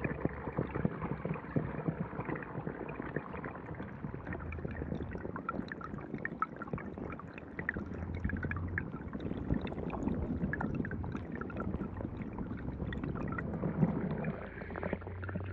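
Underwater stream ambience picked up by a submerged camera: the steady gurgle of water trickling over rock, dotted with many small clicks and ticks, and a low hum that swells for a few seconds in the middle and again near the end.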